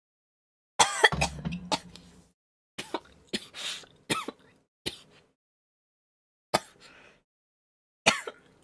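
A girl coughing in fits: a run of several hard coughs about a second in, another run of coughs a couple of seconds later, then single coughs spaced a second or two apart.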